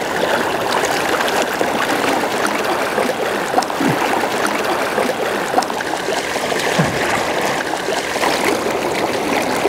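Fast river rapids rushing steadily around a wading angler, a continuous even hiss of moving water.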